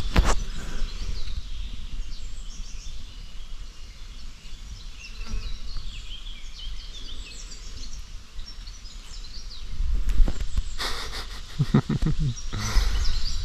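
Small birds singing and chirping in riverside woodland, over a steady low rumble of wind on the microphone. A brief murmur of a man's voice comes near the end.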